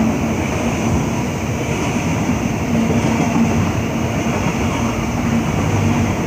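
Container wagons of a freight train rolling past at speed, a steady loud rush of wheel and rail noise.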